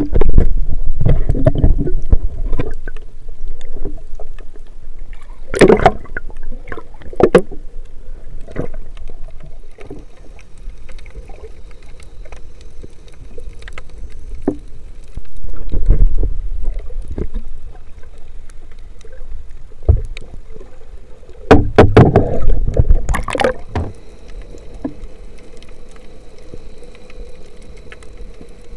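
Underwater sound through an action camera's housing as a spearfisher dives: a muffled rush of water against the camera at the start, scattered sharp clicks and knocks, and louder bursts of water noise about six and twenty-two seconds in. From about twenty-four seconds in it goes quieter, with a faint steady hum underneath.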